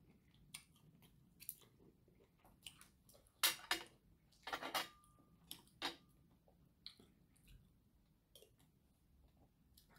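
Quiet eating sounds: chewing, with scattered clicks and taps of chopsticks and a fork against plastic takeout containers. The loudest few come around the middle.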